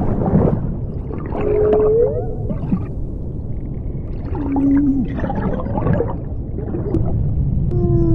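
Sound-art soundscape of crackling, gurgling noise over a low rumble, with a few slow gliding tones: one rises about two seconds in, one falls past the middle, and more fall near the end.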